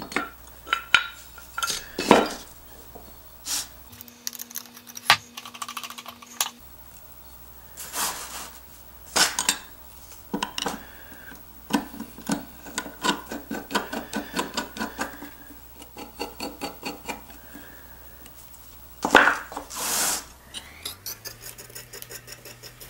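Steel and cast-iron parts of a Stanley 4C hand plane clink, knock and scrape as the plane is assembled. A screwdriver turns a screw in the frog seat, and there is a run of quick small clicks in the middle.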